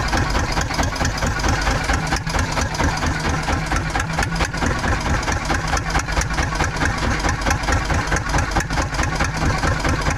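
A fishing boat's inboard engine running steadily, with a fast, even pulsing beat.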